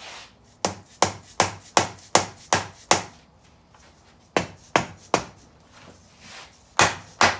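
Mallet knocking on the aluminium tail housing of a T5 transmission, about three sharp knocks a second in three runs with short pauses between. The knocks are meant to break the tail housing loose from the case, where Permatex sealant won't let go.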